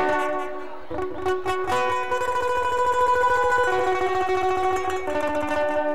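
Guitar strumming and violin playing a torrente, the instrumental tune of Panamanian décima singing, with the violin holding long notes over steady guitar strokes.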